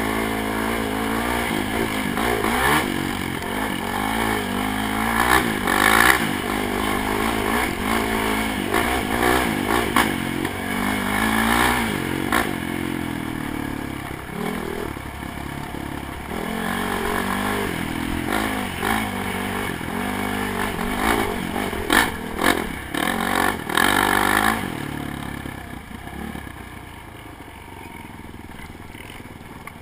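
ATV engine revving up and down as it is ridden hard over a rough dirt trail, with clatter and knocks from the bumps. About 25 seconds in, the engine drops to a lower, quieter run as the quad heads down a slope.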